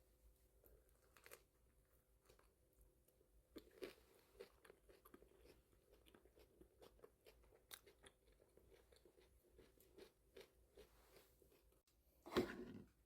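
Faint crunching and chewing of food, with many small irregular clicks and one brief louder noise near the end.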